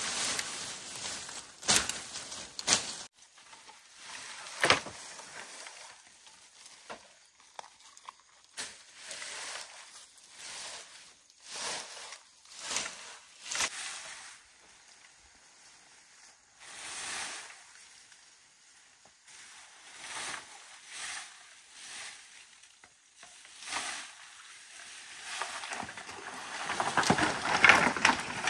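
Dry bamboo poles and brushwood rustling and knocking as they are handled on a brush pile, with a few sharp knocks in the first seconds. The loudest part is a longer rustle of a bundle of brush being dragged and carried near the end.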